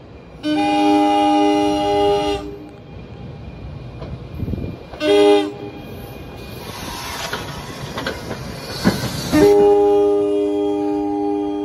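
NJ Transit Arrow III electric multiple unit sounding its air horn: a blast of about two seconds, a short toot about five seconds in, then a long blast held from about nine and a half seconds on. Between the blasts the train's wheels rumble and clack louder on the rails as it comes closer.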